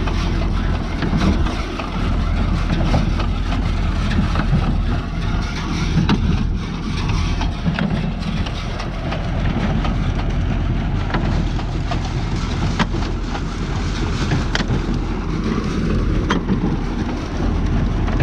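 Tractor engine running steadily while a New Holland 68 square baler works behind it, with a few sharp knocks now and then.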